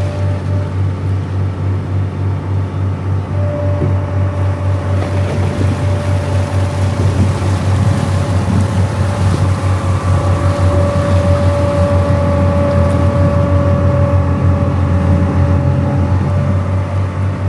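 Cruise boat's engine running steadily with a low, pulsing drone and a faint steady whine. The rush of water churning in its wake grows from about five seconds in.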